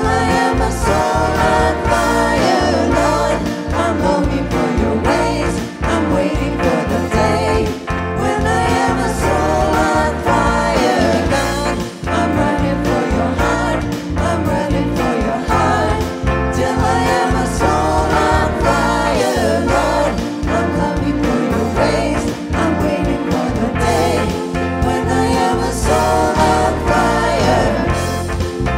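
A live contemporary worship band playing a song: two women singing lead into microphones, backed by electric guitar, keyboard and drums, with a steady beat.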